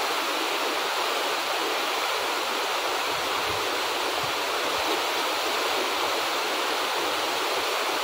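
Waterfall pouring down a cliff into a snow-banked pool, a steady, unbroken rush of falling water.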